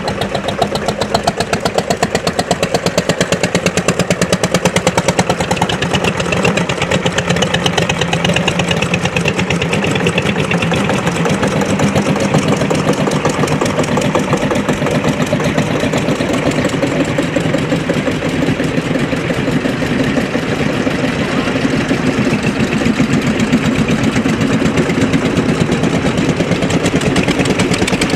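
Several vintage Svoboda tractors' single-cylinder engines running as they drive past, a rapid, even beat of firing strokes.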